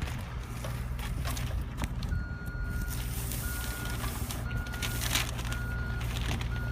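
A vehicle's back-up alarm beeping at one steady pitch, about once a second, starting about two seconds in, over the steady low rumble of a running engine.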